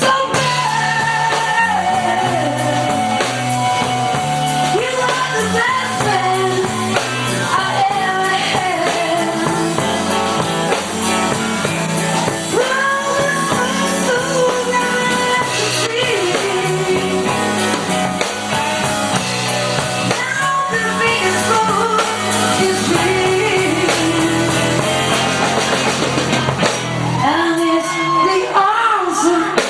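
Live rock band playing: a woman sings with a wavering, bending voice over drums and bass, without a break.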